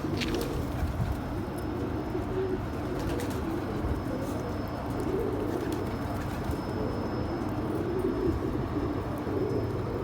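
Domestic pigeons cooing steadily, several birds overlapping, with a couple of faint clicks.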